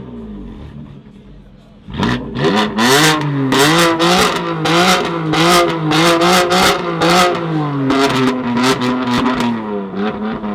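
Tuned sports car engine revved hard from about two seconds in, held high with its note wavering, and a rapid string of sharp pops and bangs from the exhaust; the revs drop near the end.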